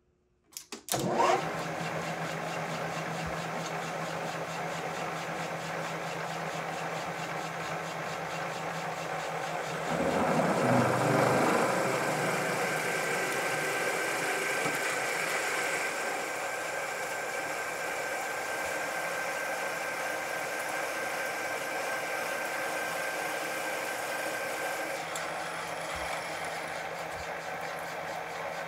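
Metal lathe starting up about a second in and running steadily, with a twist drill fed from the tailstock boring into the soft steel end of a spinning Morse-taper blank. The cutting gets louder about ten seconds in, with a thin steady high tone from the cut that stops near the end.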